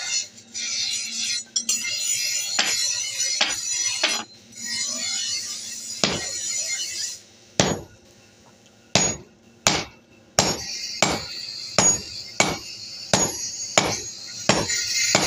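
Hand hammer striking a red-hot steel hatchet head on an anvil while it is forged: a few scattered blows over a steady hiss at first, then from about halfway a steady run of ringing blows, roughly three every two seconds.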